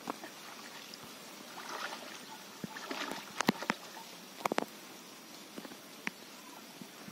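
Shallow water sloshing and splashing as legs wade through a flooded paddy field. A few sharp clicks come about three and a half and four and a half seconds in.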